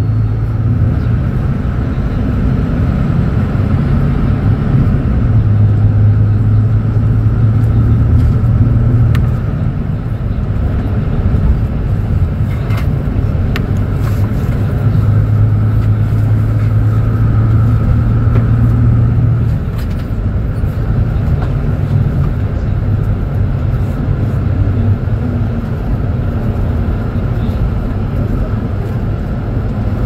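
Diesel engine of a Marcopolo Torino city bus idling while the bus stands still, a steady low hum that swells for a few seconds twice.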